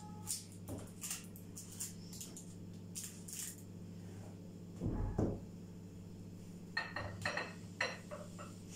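Glass jars being handled and set down on a table: scattered light knocks, a dull bump about halfway, then a quick run of ringing clinks near the end.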